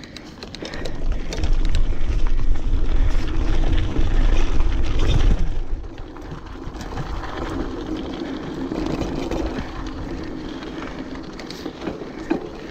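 Orbea Alma mountain bike riding over a rocky trail, heard from its camera: a loud low rumble of wind and tyre noise from about a second in until about six seconds in, then quieter steady rolling noise with scattered clicks and rattles from the bike over rocks.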